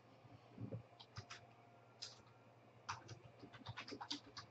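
Faint, scattered clicks of a computer keyboard being typed on, running together into a quicker string of keystrokes about three seconds in. There are also a few soft taps near the start.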